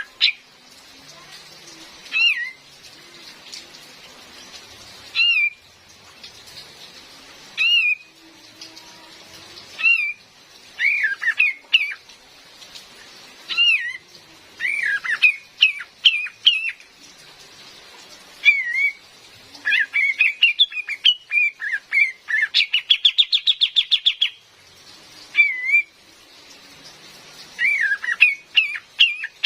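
Female kapas tembak bulbul calling: short chirps that swoop up and down, repeated every second or two. It runs into quick clusters of notes, and a fast rattling trill comes about 23 seconds in. Steady rain hisses underneath.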